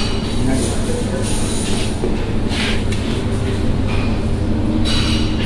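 Steady low hum of kitchen ventilation, with a spoon now and then scraping and scooping through cooked biryani rice in a metal pan.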